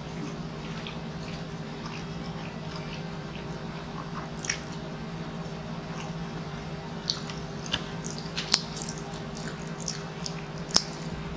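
Close-miked eating: a man chewing sausage and rice, with wet lip smacks and mouth clicks, the sharpest about eight and a half and just under eleven seconds in, and finger-licking smacks near the end. A steady low hum runs underneath.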